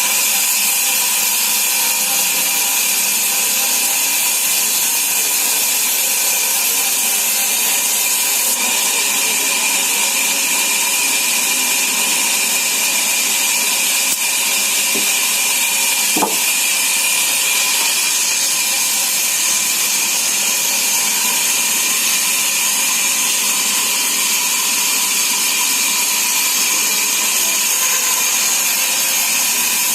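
Sawmill saw running through timber: a steady, high-pitched whine and hiss that does not let up, with one sharp click about 16 seconds in.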